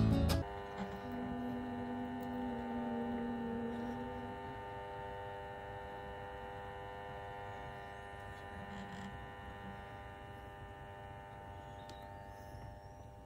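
A steady hum of several held tones, slowly fading.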